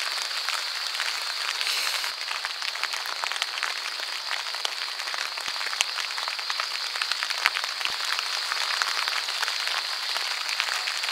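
Rain falling on a dome tent, heard from inside: a steady hiss with many small drop taps on the fabric.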